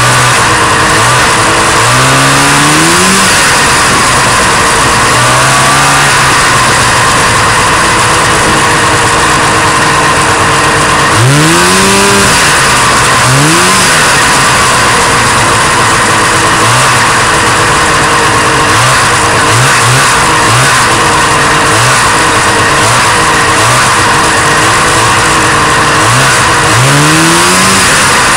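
A 1977 Arctic Cat Panther 5000 snowmobile's two-stroke engine running loud under way over snow, revving up and down. The pitch rises sharply several times, and there is a run of short, quick throttle blips in the second half, over a steady rush of track and wind noise.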